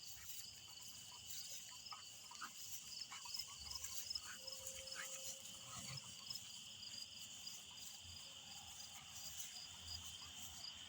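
Faint night chorus of insects: a steady high trill with a higher chirping pulsing a few times a second above it, and scattered light ticks and rustles.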